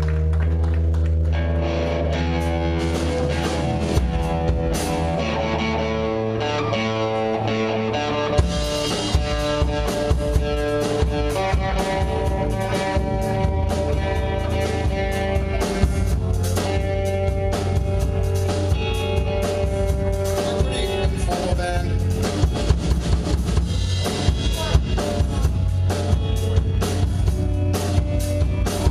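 Live rock band playing without vocals: guitar and bass hold sustained chords, then the drum kit comes in about eight seconds in and the band plays on with a steady beat.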